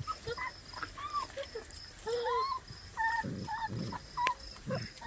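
Six-week-old Basset Hound puppies whining and yipping in many short, high calls, with a faint steady insect chirring behind.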